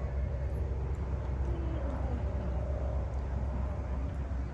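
Steady low outdoor rumble with faint distant voices in the background.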